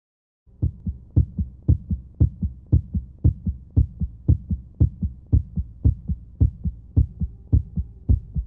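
Heartbeat-like double thumps, a strong beat followed closely by a weaker one, repeating evenly about twice a second over a faint steady hum. It starts about half a second in.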